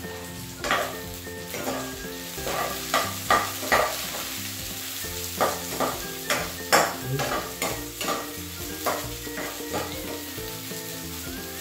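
Chopped garlic and red onion sizzling in hot oil in a frying pan, the start of a sauté, while a metal spoon scrapes and taps the pan in a dozen or so irregular stirring strokes.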